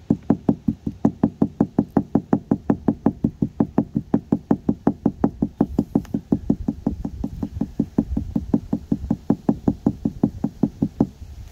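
Rapid, steady tapping by a gloved hand on a car windshield beside a chip-repair resin injector, about four knocks a second, stopping just before the end. The tapping helps work trapped air out of the chip so the resin can fill it.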